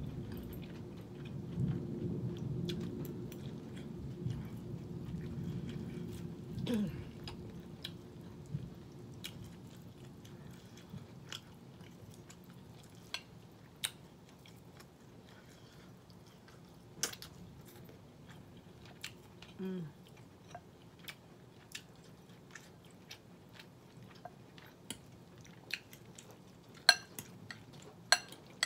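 Close-miked chewing and mouth sounds of someone eating smoked turkey wings and cabbage, with scattered sharp clicks of a fork against a glass bowl, the loudest one near the end. A low rumble runs under the first several seconds.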